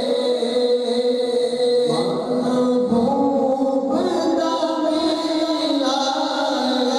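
Naat, unaccompanied Islamic devotional singing: voices hold long notes that step to new pitches every second or two.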